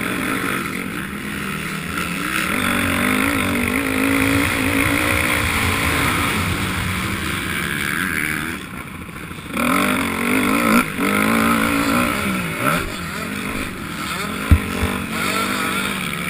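Honda 250 motocross bike's engine running hard on the throttle, its pitch wavering up and down as the throttle opens and closes. It drops off about nine seconds in and picks up again a second later, and there is a short sharp knock near the end.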